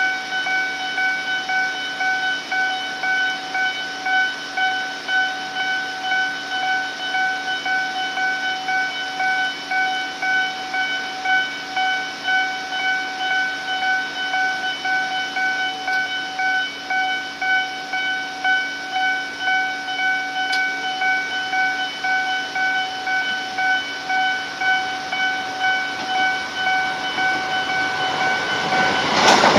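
Electronic level-crossing warning bell on the Tobu Noda Line, a high-pitched repeating tone that pulses evenly and steadily. In the last moment a train's loud running noise sweeps in over it.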